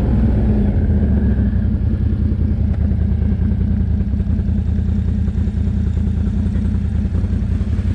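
Can-Am Outlander 1000R ATV's V-twin engine running at a steady, even speed.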